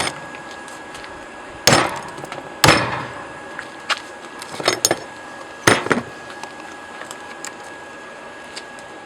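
Hand hammer striking a hot steel railroad clip clamped in a vise: four heavy blows, irregularly spaced, with lighter taps and clinks in between.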